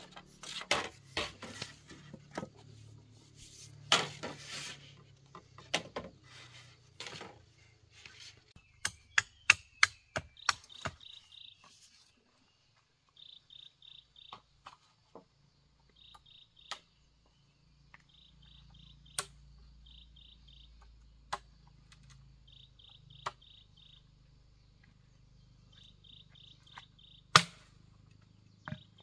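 A knife chopping and knocking on bamboo poles, a quick run of sharp strokes, then an insect chirping in short bursts of a few rapid pulses, with now and then a single sharp knock of bamboo, the loudest near the end.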